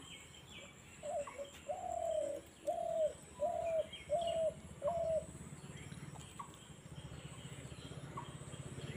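A bird calling a run of about six evenly spaced notes at one pitch over some four seconds, with faint chirps of small birds. After the calls stop, a low steady hum remains.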